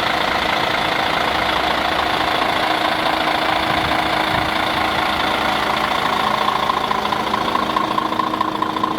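Diesel engine of a Mercedes-Benz Axor concrete pump truck running steadily, with a steady whine that grows stronger near the end.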